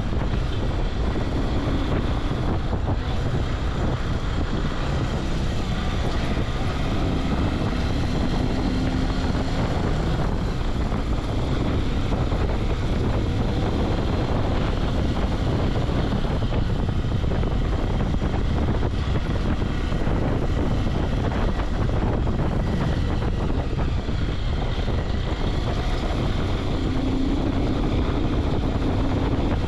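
Bajaj Pulsar 180 motorcycle riding at city speed: its single-cylinder engine running steadily under the rider, mixed with wind rush over the microphone. The engine note rises and falls slightly a couple of times with the throttle.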